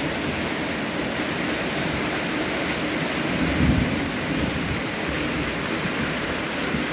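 Steady loud hiss, with a brief low rumble about three and a half seconds in.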